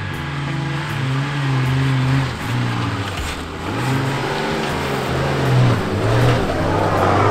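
Nissan GQ Patrol ute's engine working hard up a soft sand dune track, the revs rising and falling several times as the driver feeds the throttle.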